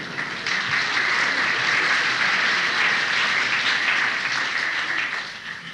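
Concert audience applauding after a monologue ends, heard on an old cassette recording. The applause swells within the first half-second, holds steady and loud, then dies away near the end.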